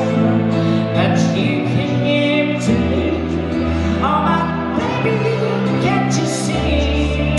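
A singer's voice through a stage microphone over instrumental backing music with held bass notes.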